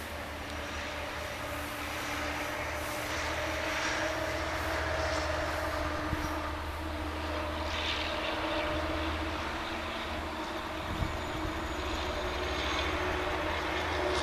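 Diesel locomotive engine running with a steady low drone, growing a little louder, with a brief knock about eleven seconds in.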